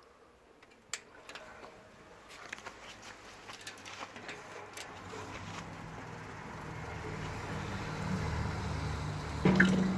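A few light clicks, then water running into the stainless-steel mash kettle, a steady rushing that grows gradually louder over the second half. A louder knock comes near the end.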